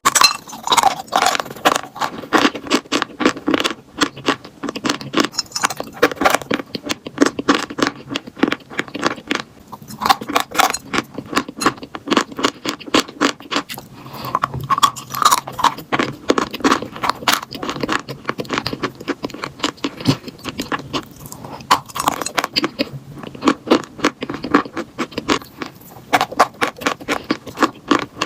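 Close-up crunching of chalk being bitten and chewed: a dense, irregular run of sharp crunches and crackles with scraping in between, without pause.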